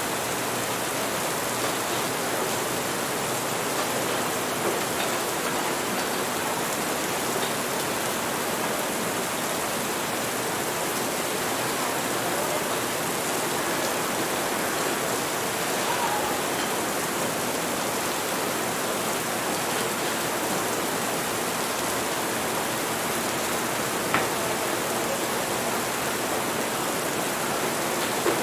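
Steady rain falling, with a couple of short, faint clicks, the clearest near the end.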